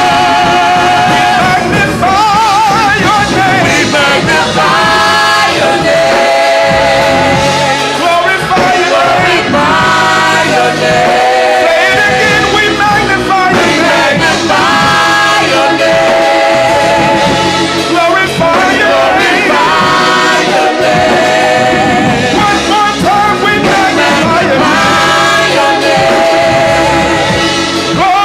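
Live gospel worship music: voices singing with wavering held notes over instrumental accompaniment, loud and continuous.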